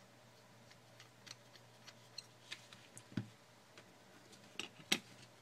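Sparse small clicks and taps of a screwdriver and tiny screws handled against an iPhone 4, with a duller knock about three seconds in and the sharpest click near the end.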